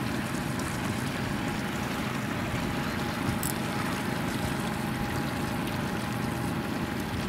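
Steady running noise of a motorboat at trolling speed: the outboard motor runs evenly under the sound of water along the hull.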